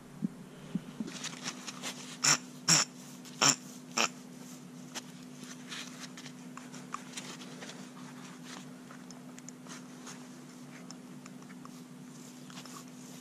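Front wheel hub bearing of a Seat Leon ST being rocked by hand to show its play: four sharp knocks about two to four seconds in, then fainter scattered clicks. The clicking is the sign of a worn wheel bearing with free play, something the owner says a bearing definitely should not do.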